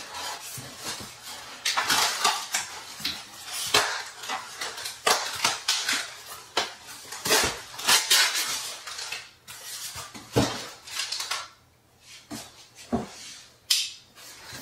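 Hands rummaging through a cardboard shipping box and its packing: irregular rustling, scraping, and small hard clinks and knocks.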